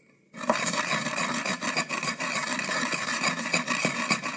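Pestle grinding and rubbing green chillies with salt in a kunda mortar, a continuous gritty scraping with small clicks. It starts about a third of a second in.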